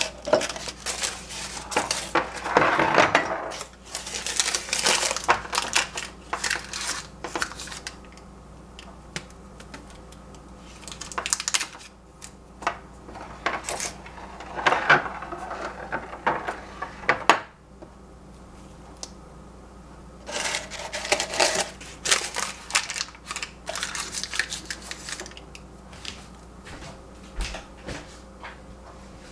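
Small glass jars being handled on a stovetop: paper covers crinkling as they are folded over the jar mouths, and glass clinking and knocking as the jars are moved. It comes in several bursts of rapid clicks and rustling with short quiet gaps.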